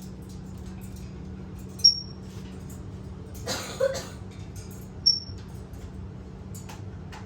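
African grey parrot giving short, high single-note whistled peeps, twice a few seconds apart, with a brief scuffling noise between them. A steady low hum runs underneath.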